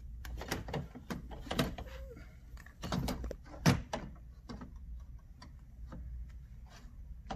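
Plastic clicks and knocks of a cartridge being slid back into a Xerox laser printer and pushed until it locks in place, with a sharper knock a little under four seconds in.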